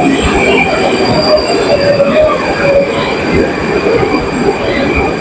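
Moscow Metro train running on the rails, a loud steady rumble with high-pitched wheel squeal.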